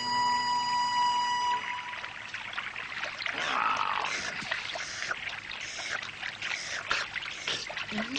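A held music chord ends about a second and a half in. Then an animal laps water from a pond with repeated small wet lapping splashes.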